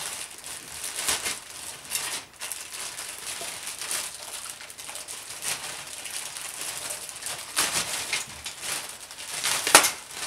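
Thin clear plastic bag crinkling and rustling as it is pulled open around plastic model-kit sprues, with several sharper crackles, the loudest just before the end.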